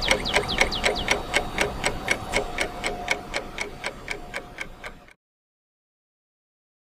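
Background music ending: a fast, even ticking beat of about five clicks a second, each with a short falling high tone, over a held note. It fades and cuts off to silence about five seconds in.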